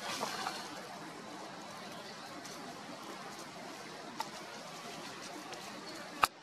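Steady outdoor background hiss with a few faint ticks, and one sharp click near the end.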